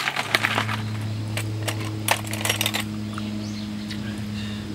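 Ice cubes clinking and cracking now and then in a glass mason jar of freshly poured hot coffee, over a steady low hum.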